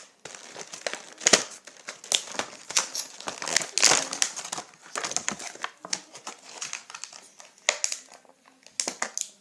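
Toy packaging being opened by hand, crinkling and rustling in irregular bursts.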